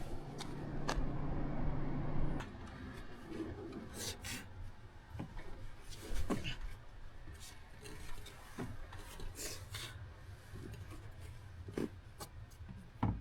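A steady low hum that cuts off about two and a half seconds in, then scattered light clicks, knocks and rubbing, as from hands working around a Tank 500's engine bay.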